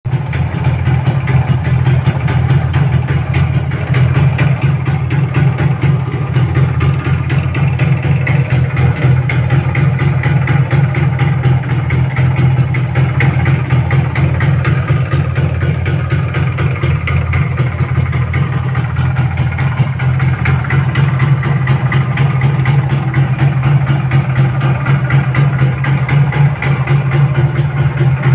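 Suzuki Samurai motorcycle's two-stroke single-cylinder engine idling steadily on its stand, an even exhaust beat that does not rise or fall.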